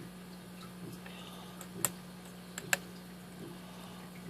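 Lock pick working the pin stack of a six-pin Master Lock lockout padlock under tension: light ticking from the pick, with a sharp click about two seconds in and two more close together a little later.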